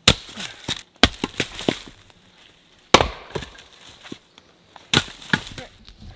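Axes splitting firewood rounds: four heavy strikes about one to two seconds apart, each followed by a short run of smaller cracks and knocks as the wood splits.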